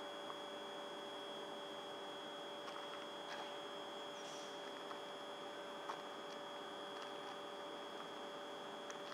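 Class 450 Desiro electric multiple unit standing at the platform, its onboard electrical equipment giving a faint, steady hum with a high whine held on one note. A few tiny clicks.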